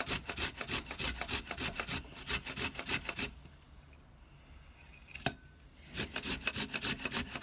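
Fresh ginger root being grated on a hand grater: a fast, even run of rasping strokes that stops partway through, one sharp click in the pause, then the strokes start again.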